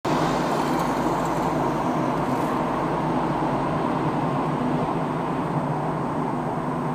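Car engine and tyre road noise heard from inside the cabin while driving at a steady speed: a constant low rumble with a faint steady hum.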